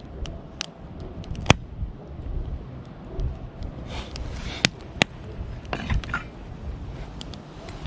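Wood campfire burning, with a low rumble and a few sharp pops, the loudest about a second and a half in and again around five seconds.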